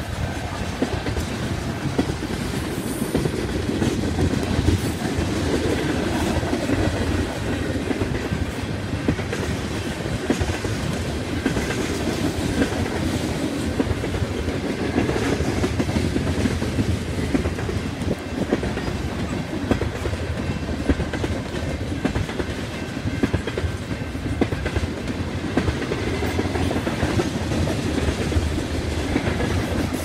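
Railroad tank cars of a freight oil train rolling past. It makes a continuous rumble, with frequent knocks and clatter from the wheels and couplers.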